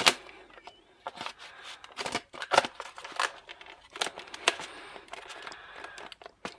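Plastic parts of a mechanical keyboard being handled and pressed together during reassembly: irregular sharp clicks and taps with short rustles.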